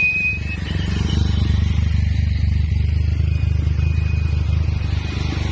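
Motor vehicle engine running with a steady low drone, a little louder after about a second.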